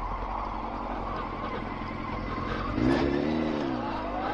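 Honda Fireblade's inline-four engine running under way, with steady wind rush on the action camera; about three seconds in the engine note comes up, rising and dipping, and a short tick is heard.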